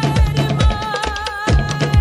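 Tahitian drumming music for Ori Tahiti dance: rapid clattering strokes on wooden slit drums (to'ere) over deep bass drum beats at about two a second, with a held melodic tone above.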